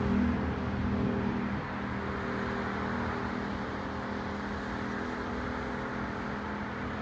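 Steady road traffic noise, a continuous even rush of passing cars, with a faint steady tone fading out during the first second or so.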